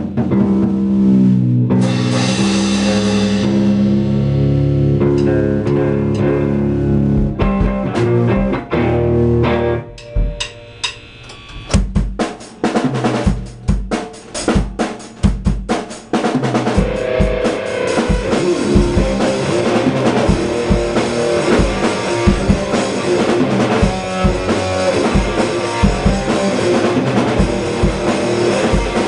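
Electric guitar through an amp stack and a drum kit playing a rock song: held guitar chords ring for the first several seconds, drums come in, there is a quieter stretch of sparse drum hits, then guitar and drums play together steadily for the second half.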